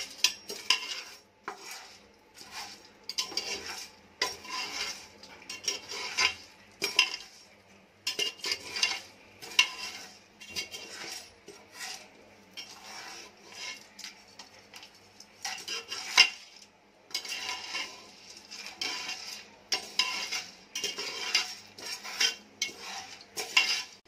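A steel slotted spoon scraping and stirring popcorn kernels around the bottom of an aluminium pressure cooker, with the kernels rattling against the metal. It comes in repeated strokes, about one a second.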